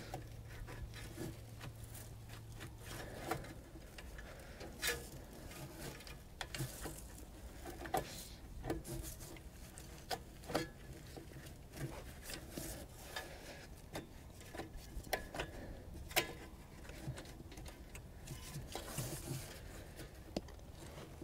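Scattered light clicks, taps and rubbing as gloved hands work a carburetor and its choke linkage loose from a Cummins Onan QG 4000 RV generator's engine.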